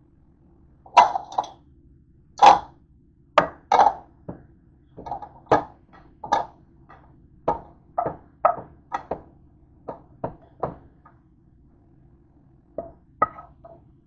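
Kitchen utensils clinking and knocking against dishes: about twenty sharp, irregular knocks, with a pause of about two seconds near the end before a last few.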